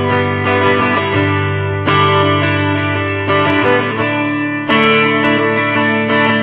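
Background music: guitar through effects playing sustained chords, a new chord struck about every three seconds.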